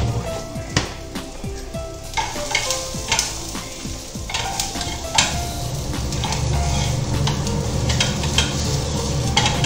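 Spatula clicking and scraping in a frying pan while onion, cumin and curry leaves fry in ghee with a light sizzle. A steady low hum sets in about halfway through.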